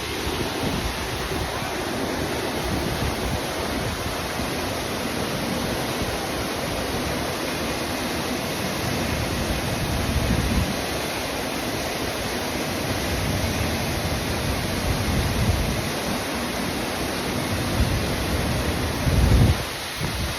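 Steady rush of Horsetail Falls' falling water, with wind buffeting the microphone in low rumbling gusts now and then, the strongest near the end.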